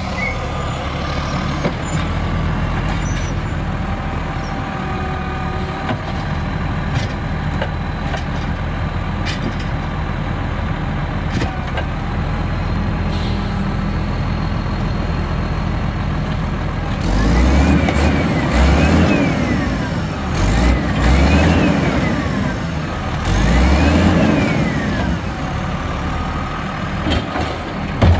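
Automated side-loader garbage truck idling at the curb. Then, as its hydraulic arm lifts, dumps and lowers a cart, the engine revs up and down four times, each time with a hydraulic whine that rises and falls. A sharp knock comes near the end.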